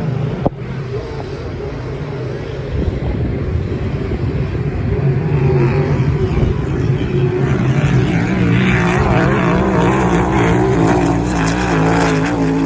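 An engine running, its pitch wavering up and down, growing louder from about six seconds in.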